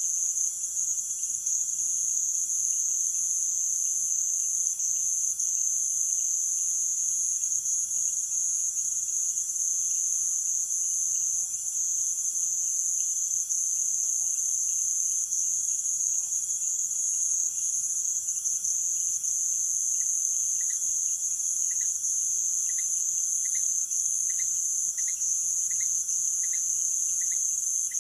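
Dense, steady, high-pitched chorus of crickets and other night insects in tropical rainforest. From about two-thirds of the way in, a lower short call repeats about a dozen times, a little faster as it goes.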